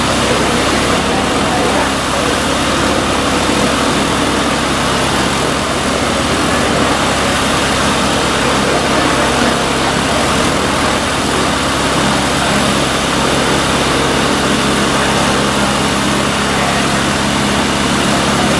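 Light aircraft piston engine idling, a steady drone that holds one pitch throughout.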